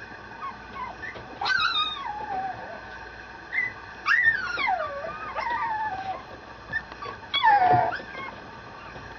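Mame shiba (miniature Shiba Inu) puppy whining: four high-pitched cries that slide down in pitch, about a second and a half in, twice around the middle, and once more near the end.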